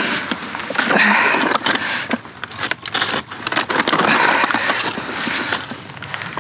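Large plastic shopping bag rustling and crinkling as it is handled, in bursts about a second in and again around four seconds in, with scattered crackles between.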